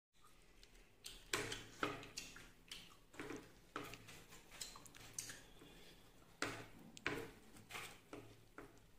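Faint, irregular clicks and smacks of eating by hand: chewing and lip smacks, with fingers working rice against the plates.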